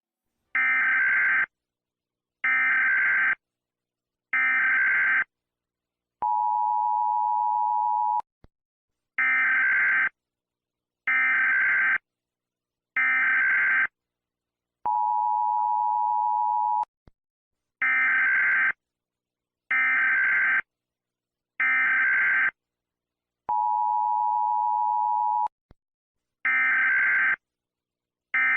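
Emergency Alert System tones. Three short data-burst screeches about two seconds apart are followed by a steady two-tone attention signal lasting about two seconds, and the cycle repeats over and over.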